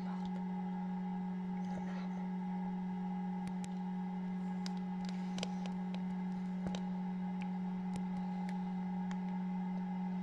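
Steady electric hum of an incubator's fan running, with a few faint, scattered clicks in the middle of the stretch.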